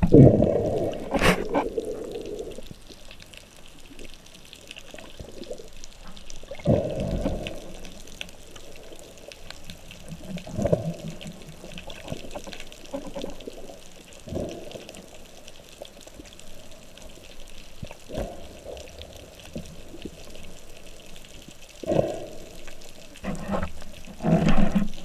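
Underwater sound: a steady muffled water hiss broken by about eight short, low swooshing surges of water, the loudest at the start and near the end.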